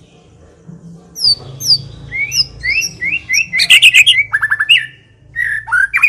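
White-rumped shama (murai batu) singing. After about a second of quiet comes a loud run of clear whistled phrases: repeated rising whistles, quick trills and fast repeated notes, with a brief pause near the end.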